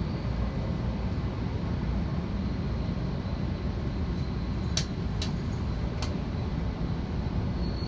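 Steady low running noise of an E2 series Shinkansen train, heard from inside the passenger car as it rolls along the track. Three sharp clicks sound about five to six seconds in.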